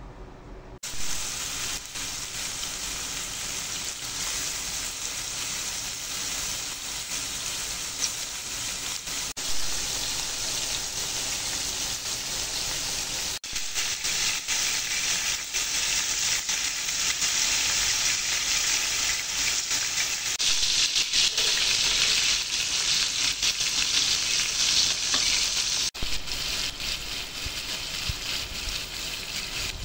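Diced chicken and chopped ingredients sizzling in hot oil in a frying pan. The steady sizzle starts suddenly about a second in, grows louder in the second half, and breaks off for an instant twice.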